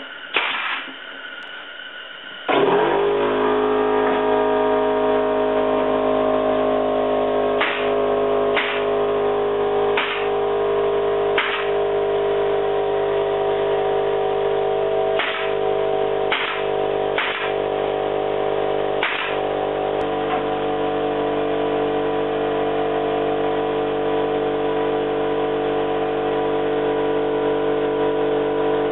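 Pneumatic brad nailer firing, once near the start and then eight sharp shots in two groups of four. An air compressor kicks on about two and a half seconds in and runs steadily underneath.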